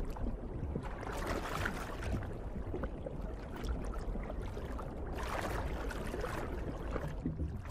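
Underwater water sounds: a steady low rumble with two swells of rushing water, about a second in and again about five seconds in.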